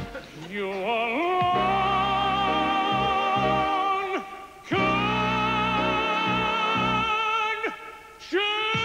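A male tenor singing long held notes with vibrato over musical accompaniment, in a big operatic ballad style. Three sustained notes, each swooping up into pitch, with brief breaks about four and eight seconds in.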